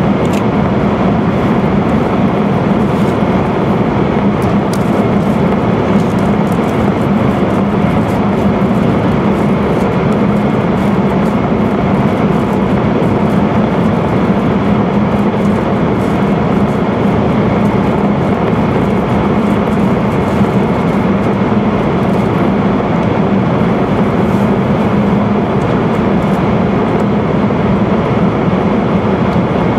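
Cabin noise of an E5 series Shinkansen running at speed through a tunnel, heard from a window seat. It is a loud, steady rumble that never lets up, with a low hum in it.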